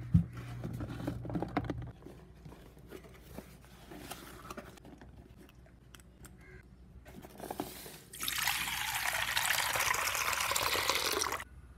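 Tap water gushing into a steel pot for about three seconds, starting about eight seconds in and stopping abruptly. Before that come soft rustles and clicks as a cardboard box of quail eggs is handled, and a low hum in the first two seconds.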